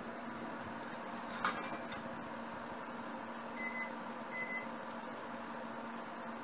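Steady background hum with two light metallic clinks, a metal measuring spoon knocking against a stainless bowl, about a second and a half in. Two short high beeps follow a little after the middle.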